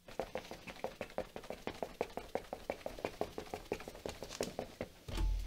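A fast run of light taps, about five a second, uneven in strength, then a dull low thump near the end.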